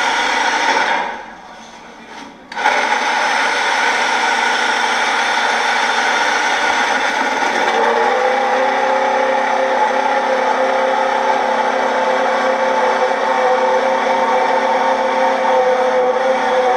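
Ferrari Formula 1 V8 racing engine running at high revs, played back from a YouTube video through a small speaker. The sound cuts out briefly about a second in, then returns and holds a steady high pitch.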